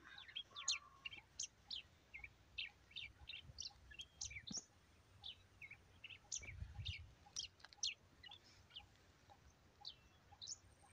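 Faint chirping of small birds: many short, high chirps, several a second. A brief low rumble comes about two-thirds of the way through.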